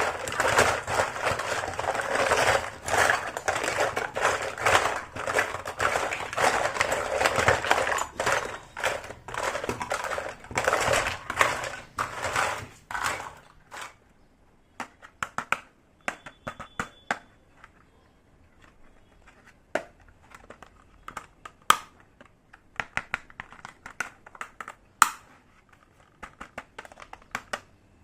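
Plastic packaging crinkling and crackling as it is handled, for about the first half. It stops abruptly, and scattered light clicks and taps of small hard pieces being handled and set down follow.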